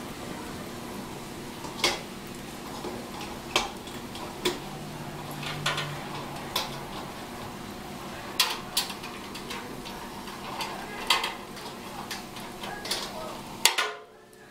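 Stainless steel grill grate and perforated metal plate clinking and clattering as they are set down and fitted onto the steel bowl of a tabletop smokeless charcoal grill, about fifteen sharp clinks. A steady hum runs beneath and cuts off suddenly just before the end.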